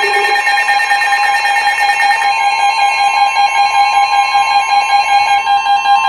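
Several NOAA weather radios sounding their alert alarms at once: steady, layered high-pitched tones, among them the weather radio's 1050 Hz warning alert tone, signalling an incoming severe thunderstorm warning. Some of the tones drop out partway through.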